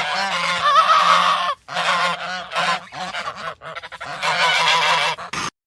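A flock of waterfowl calling all at once in a dense, overlapping chorus. There is a brief break about one and a half seconds in, and the calling cuts off suddenly just before the end.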